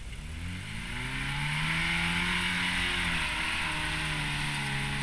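Geo Tracker engine revving under load as the 4x4 climbs a steep slope: its pitch rises over the first second and a half, then holds high with a brief dip about three seconds in.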